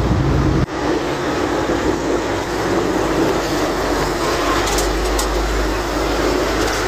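Steady noise of rain and traffic on a wet road, with a few faint clicks about five seconds in.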